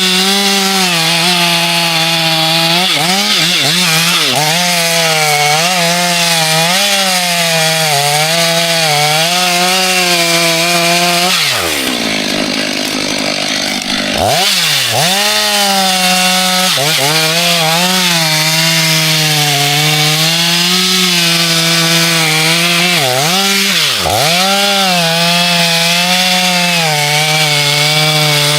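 Two-stroke chainsaw running at high revs and cutting into a tree trunk. Its whine sags and recovers as the chain loads up in the wood. About twelve seconds in, the revs drop away sharply for a couple of seconds, then come back up.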